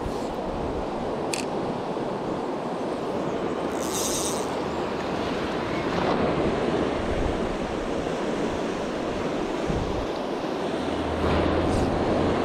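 Fast river current rushing over a stony bed, a steady rush of water, with a brief high-pitched rasp about four seconds in.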